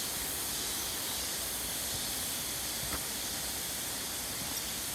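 Steady high-pitched drone of a cicada chorus in the forest canopy, with a single faint tick about three seconds in.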